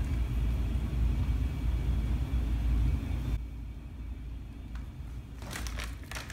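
A low, steady rumble that drops away abruptly about halfway through, then the crinkling of a plastic snack bag being handled near the end.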